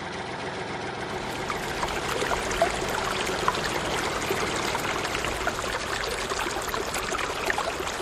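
Water gushing steadily from a tractor-driven pump's outlet, splashing and bubbling as it flows.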